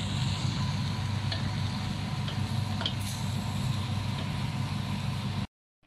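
Chicken and egg noodles stir-frying in a stainless steel wok: a steady sizzle over a low hum, with a few light clicks of the spatula against the pan. The sound cuts off suddenly near the end.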